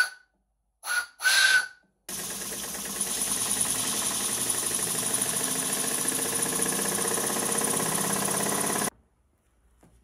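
A few short bursts of steam hissing with a whistling note in the first two seconds, as the homemade boiler's valve is opened. Then a small lathe-built steam engine runs fast and steady with continuous steam hiss, belt-driving a small motor used as a generator, and the sound cuts off suddenly about a second before the end.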